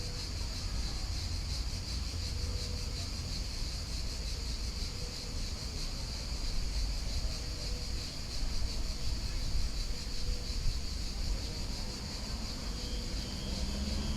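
Steady, high-pitched chorus of insects such as crickets, over a low rumble.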